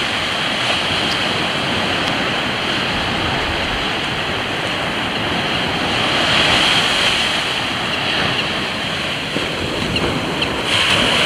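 Ocean surf washing on the beach in a steady rush, swelling a little around the middle.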